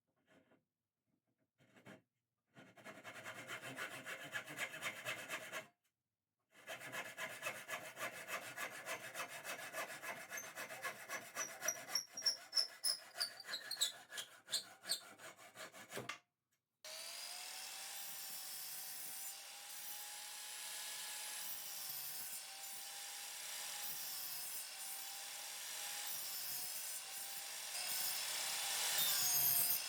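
Hand saw cutting pine with rhythmic push-pull strokes, about two to three a second, in two runs with a short pause between. From about 17 seconds in, the strokes give way to a steady, unbroken rasping noise with a wavering tone.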